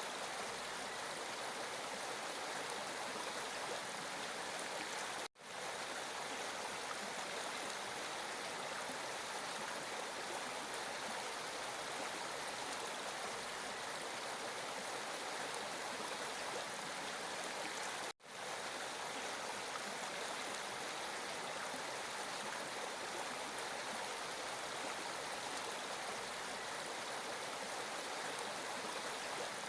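Flowing water, a steady rushing stream sound. It cuts out to silence for a split second twice, about 5 and 18 seconds in.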